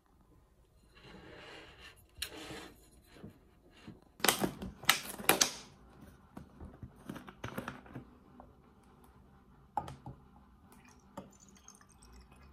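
A plastic drink bottle being handled and opened over a glass: a run of sharp clicks and crackles, loudest in a cluster around four to five and a half seconds in, then a few scattered lighter clicks and knocks.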